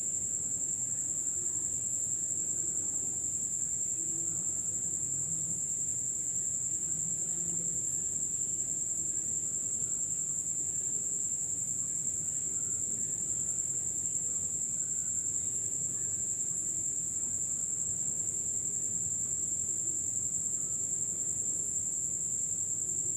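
A steady, high-pitched whine held without change throughout, over a faint low background hum.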